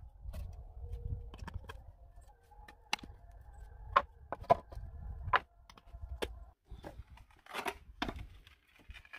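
Scattered sharp knocks and clinks of a hand tool on pallet boards, then a rougher clatter of wooden boards handled together near the end.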